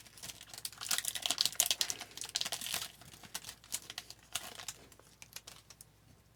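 Foil wrapper of a hockey card pack crinkling as it is torn open and handled, with a thick run of rustling and small clicks that thins out and stops about five seconds in.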